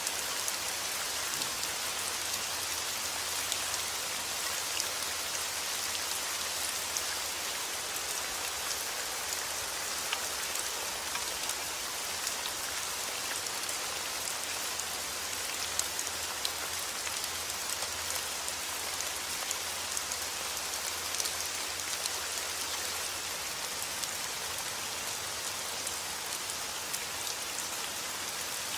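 Heavy rain falling steadily, with a dense hiss and many small drop ticks.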